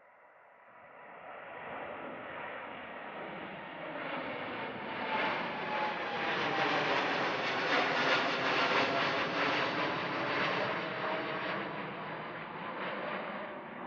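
Jet airliner passing by, its engine noise swelling to a peak about eight seconds in and then fading, with a faint engine whine dropping in pitch as it goes past.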